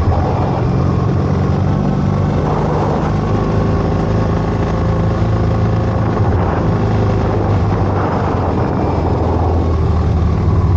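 Motorcycle engine running at a steady cruising pace while riding, with wind noise over it.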